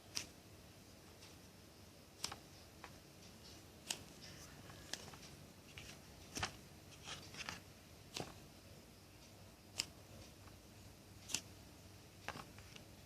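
Faint handling noise of a jumbo foam squishy toy: about a dozen light, sharp clicks and crackles, scattered irregularly over a quiet room hiss.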